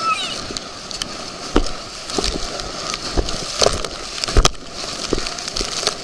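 Rushing water as an inflatable tube is towed at speed through a motorboat's wake, with the tube thudding on the waves about six times, loudest about four and a half seconds in.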